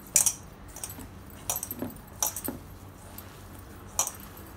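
A hand mixing a grated potato and vegetable mixture in a stainless steel bowl, with irregular sharp metallic clinks as a ring and bracelet knock against the bowl, about six in all, the loudest right at the start.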